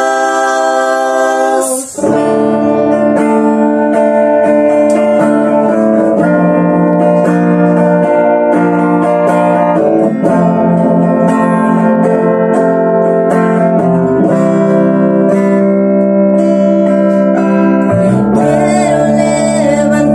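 Worship music: the singers hold a closing chord without accompaniment, then about two seconds in a slow instrumental passage on electric guitar and bass guitar begins. Voices come back in over the guitars near the end.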